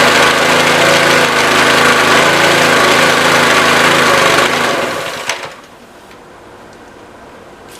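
Pressure washer's Honda GX200 single-cylinder engine running steadily, then shut off about five seconds in and running down to a stop, with a sharp click as it stops and a faint click near the end.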